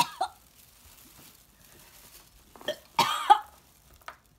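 A woman gagging and dry-heaving into a plastic bag: a short gag at the start, then a louder double retch about three seconds in. She is reacting to the foul taste of a Bean Boozled jelly bean.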